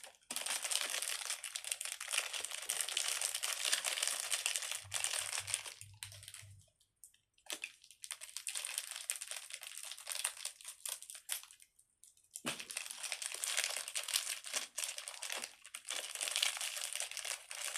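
Crinkling of small blind-bag packets as two are opened and handled by hand, in three spells with short pauses between them.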